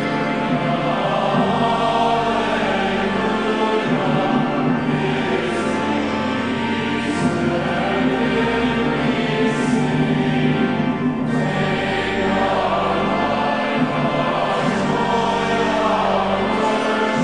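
Congregation singing a hymn together, accompanied by organ with steady held low notes.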